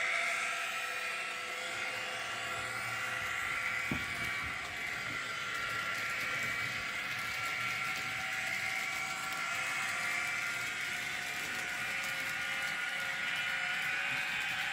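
Electric locomotive sound of a BR 182 Taurus played by a Doehler & Haass SD10 sound decoder through a tiny sugar cube speaker in an N gauge model: a steady electric whine of several held tones over a hiss. A single click about four seconds in.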